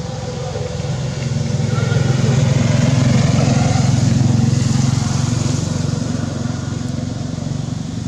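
A motor vehicle passing by: a low engine hum that grows louder over the first few seconds, then fades away again.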